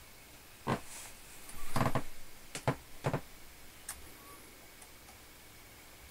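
A few light clicks and knocks, scattered about a second apart, from a toddler's hands on a Technics DJ turntable and its controls. The loudest comes about two seconds in.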